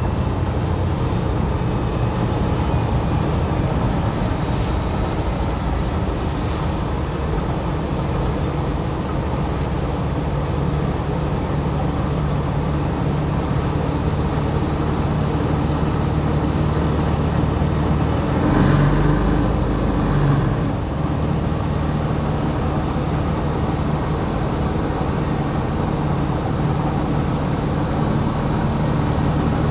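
Diesel engine and road noise of a New Flyer XD60 articulated bus under way, heard from inside: a steady low drone, with a short louder swell of noise a little past the middle.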